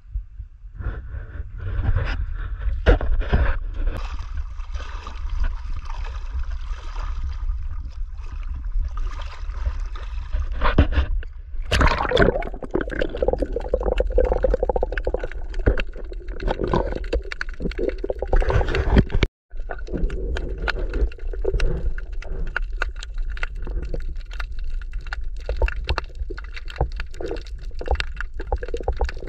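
Underwater sound picked up by an action camera: a constant muffled rumble of moving water with gurgling and many scattered clicks and scrapes. The sound cuts out for an instant about two-thirds of the way through.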